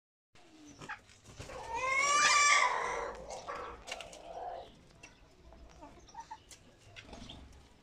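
One long animal call, rising in pitch at its start, about a second and a half in and lasting over a second; after it, faint scattered clicks.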